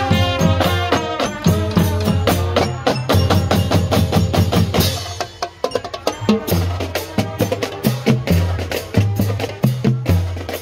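Marching band playing: trumpets carry a tune over a steady drum beat, then about halfway through the horns drop out and the drum line (bass drums, snares and cymbals) keeps a marching beat alone.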